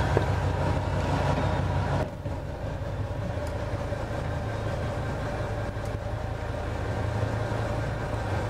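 Fishing boat's engine idling, a steady low hum heard from inside the wheelhouse; it becomes a little quieter about two seconds in.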